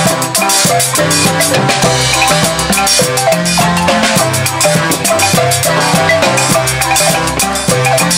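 Zimbabwean-style marimba ensemble playing: several wooden marimbas struck with mallets in a fast, interlocking repeating rhythm over low bass-marimba notes, with percussion.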